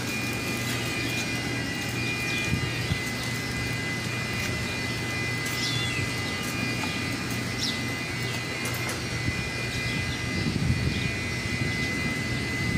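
Steady mechanical drone of running workshop machinery, with a constant high-pitched whine and a low hum, and a few short high chirps over it.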